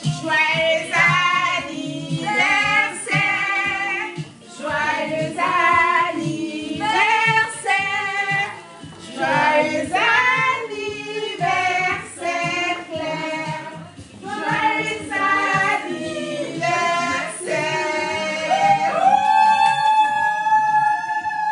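A small group of women and a girl singing a birthday song together. The singing ends on a long held note near the end.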